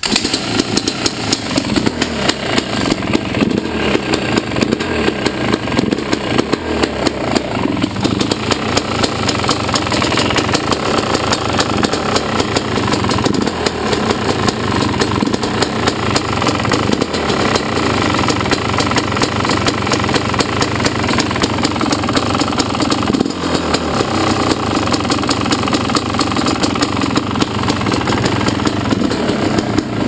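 Yamaha YZ250 single-cylinder two-stroke engine idling steadily with a ticking noise. The owner, new to two-strokes, does not know if it is normal and has heard it could be the power valve or a sign that it needs a new top end.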